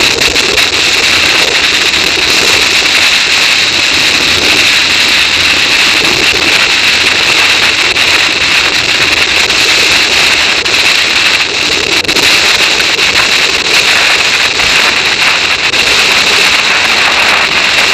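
Steady, loud rush of wind buffeting an action camera's microphone on a bicycle speeding downhill.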